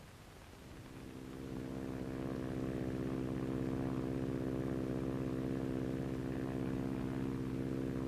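De Havilland Chipmunk's Gipsy Major four-cylinder piston engine droning steadily in flight, rising in level over the first two seconds and then holding an even note.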